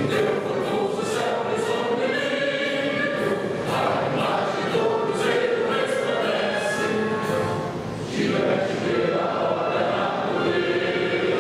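A choir singing an anthem with musical accompaniment, steady throughout with a brief lull just before the eighth second.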